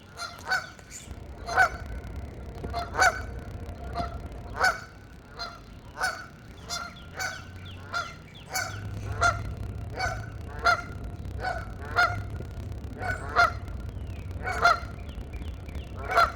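Several geese honking back and forth in a steady run of short calls, one or two a second, some much louder than others.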